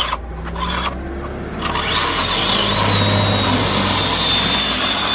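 Power saw running as it cuts through the trunk of a thuja at its base, a steady high whine over a low hum. It eases off twice in the first two seconds, then runs on evenly.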